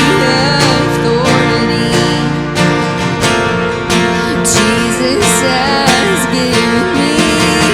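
Worship band music led by a strummed acoustic guitar, with a melody line gliding over sustained chords and a steady beat.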